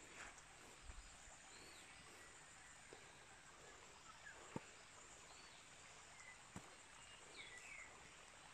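Near silence: faint outdoor ambience with a steady high hiss, a few soft bird chirps and occasional light clicks.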